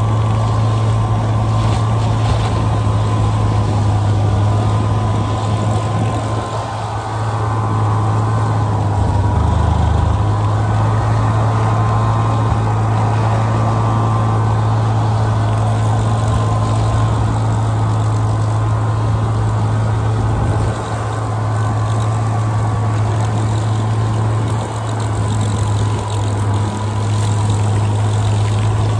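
Snowmobile engine running at a steady pace while riding, a constant low drone with a thin whine above it.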